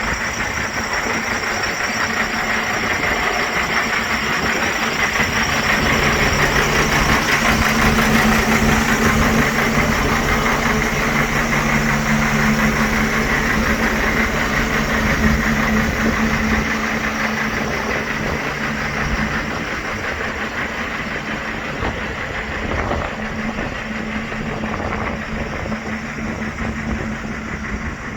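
Diesel engine of a Mercedes-Benz Arocs 4142 concrete mixer truck running, a 12.8-litre straight-six. Its low hum grows louder for a few seconds around the middle, then eases back.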